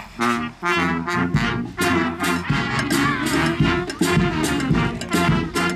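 Brass band playing a quick, rhythmic tune of short, punchy notes.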